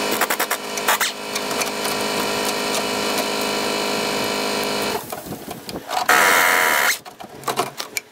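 Air impact wrench hammering on a front beam bolt of a 1960 VW Beetle, a steady rapid rattle that stops about five seconds in. A short, louder burst from the tool comes near the end, with light metallic clatter around it.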